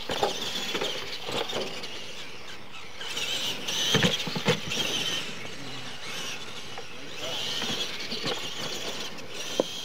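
High-pitched whine of radio-controlled monster trucks' electric motors and gears as they race, swelling and fading with the throttle. About four seconds in, a truck lands off a jump with two thuds about half a second apart.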